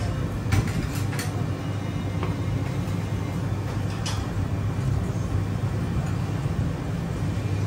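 Steady low rumble of background machinery or traffic noise, with a few sharp clicks of a metal spoon against a ceramic plate.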